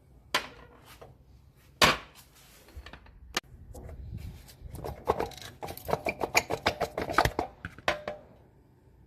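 Hand tools and metal parts knocking and clinking during work on the engine: two single sharp knocks, then a quick run of clattering strokes for a few seconds.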